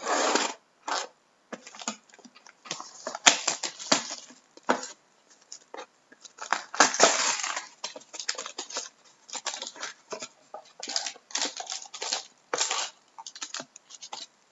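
Plastic wrap and packaging of a sealed trading-card box being torn and crinkled open, in a run of irregular crackling bursts, the longest just at the start and about seven seconds in.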